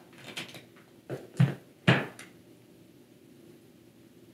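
King crab leg shell cracking and snapping in the hands as the meat is dug out: several short, sharp cracks in the first two and a half seconds, then quiet handling.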